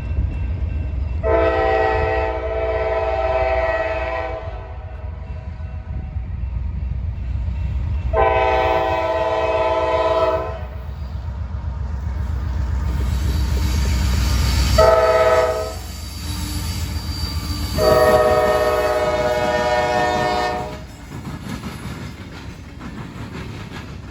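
A CSX diesel locomotive's air horn blows a chord in two long blasts, one short and one long, the standard warning signal for a road crossing. It sounds over the heavy rumble of the locomotives. After the locomotives pass, the rumble drops and the coal cars' wheels clatter rhythmically over the rail joints and the diamond.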